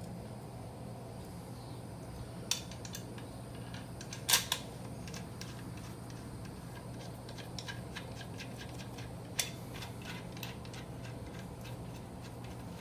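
Metal clinks and ticks as the SerialNine shifter and its spacers are handled and seated on the transmission: a few sharp clinks, the loudest a double one about four seconds in, with fainter ticks between, over a steady low hum.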